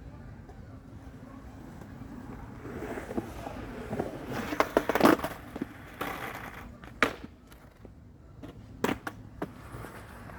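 Skateboard wheels rolling and building up speed, then a quick cluster of loud clacks and slaps from the board around five seconds in, followed by single sharp knocks near seven and nine seconds.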